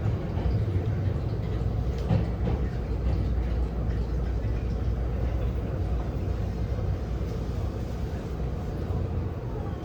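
Taiwan Railways EMU800 electric multiple unit running, heard from inside the passenger car: a steady low rumble of wheels on rail and running gear, with a few faint clicks about two seconds in.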